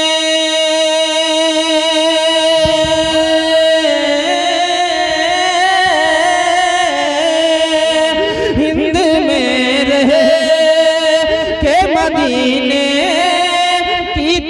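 A man singing a naat into a microphone. He holds one long steady note for about the first four seconds, then sings ornamented runs that waver and slide up and down in pitch.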